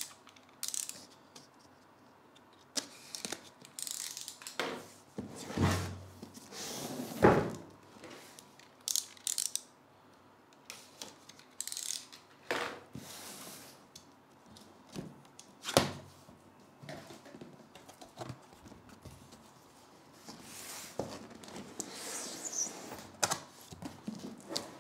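A large cardboard box being handled: the cutter slits the sealing tape, then the box gives scattered knocks and scrapes as it is turned over and its flaps are opened. The sharpest knocks come about 7 and 16 seconds in.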